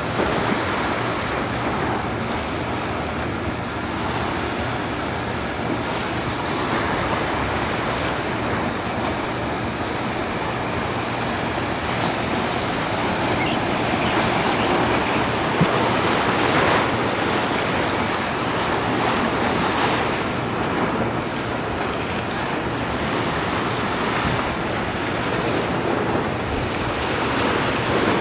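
Small ocean waves breaking over a shallow reef and washing up the beach: a steady surf rush that swells with each breaking wave.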